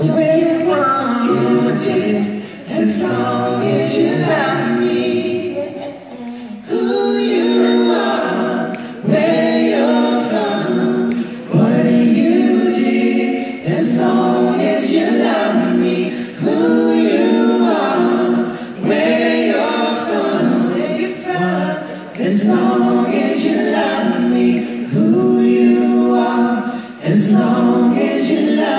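Several voices singing a cappella in harmony, in phrases of a few seconds with short breaks between them.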